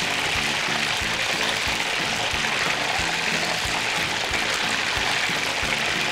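Hot frying oil ladled over a hanging whole chicken, pouring off the skin in a steady hiss, under background music with a steady beat. This is the skin-crisping stage, with the oil held at about 160 degrees.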